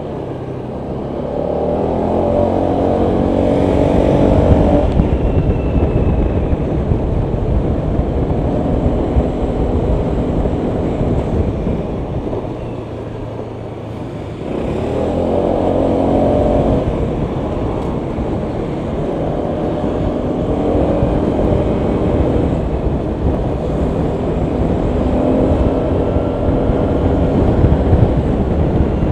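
Honda PCX 125 scooter's single-cylinder engine under way: it pulls hard early on, eases off to a quieter low just before the middle, then pulls away again strongly and keeps surging and easing as the ride goes on. Wind and road noise rumble underneath throughout.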